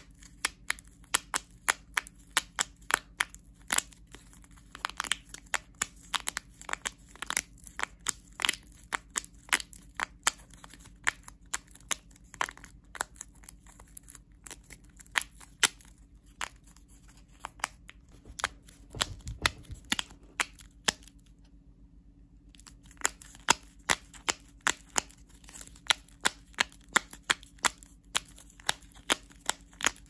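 Quick, irregular sharp clicks and snaps from small objects handled by hand, several a second, with a pause of about a second and a half about three quarters of the way through. A faint steady hum runs underneath.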